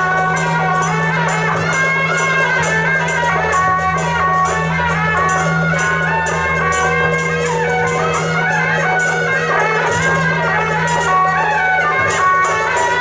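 Taiwanese beiguan-style temple procession music, with a wavering, gliding wind melody over a fast, even percussion beat.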